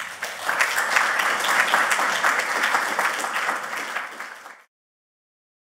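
Audience applauding, a dense patter of many hands clapping. It cuts off abruptly about four and a half seconds in.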